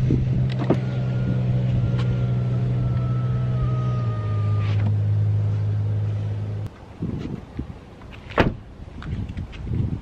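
Ford F-150 idling with a steady low hum that drops slightly in pitch about four seconds in, with a faint, thin electric-motor whine over it for a few seconds. The hum cuts off suddenly about two thirds through, leaving quieter scattered sounds and one sharp click.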